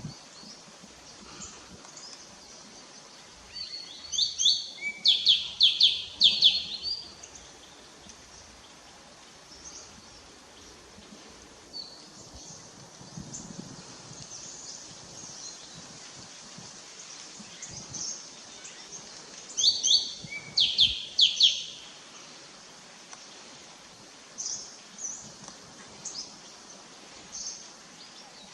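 A bird singing: two loud phrases of quick repeated high notes, one about four seconds in and another about sixteen seconds later, with fainter scattered chirps between.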